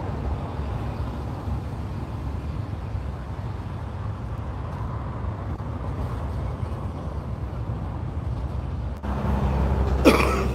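Steady low outdoor rumble that grows louder about nine seconds in, topped near the end by a brief, loud pitched sound.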